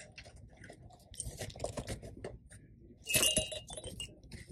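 Soft rustling and small clicks from a plush fairy doll being handled and squeezed, with a brief, louder clinking sound about three seconds in.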